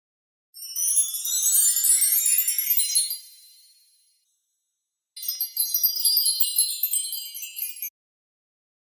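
Two bursts of high, tinkling chimes. The first sweeps up in pitch for about three seconds. After a pause, a second shimmer of about two and a half seconds cuts off suddenly.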